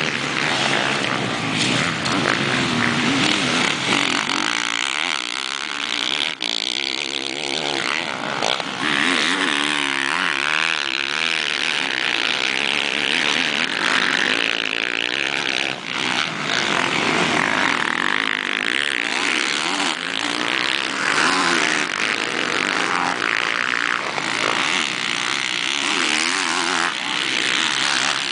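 Motocross motorcycle engines racing, revving up and backing off again and again so the pitch keeps rising and falling.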